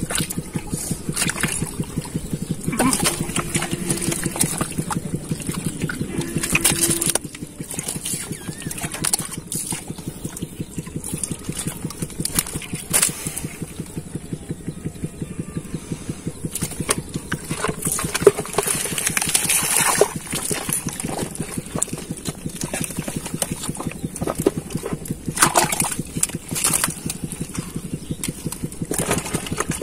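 Hands squelching and scooping through wet mud and muddy water in a hole, with scattered sloshes and splashes, over a steady rapid throbbing underneath.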